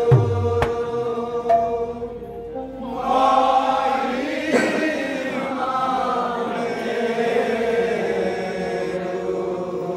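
Odia kirtan troupe chanting a devotional song together over a steady held tone, with a few sharp drum strikes in the first second or so. The massed voices swell about three seconds in.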